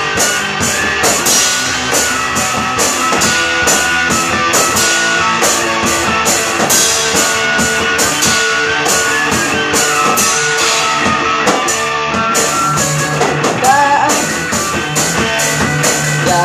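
Rock band playing live: electric guitar over a drum kit, with steady cymbal strokes throughout.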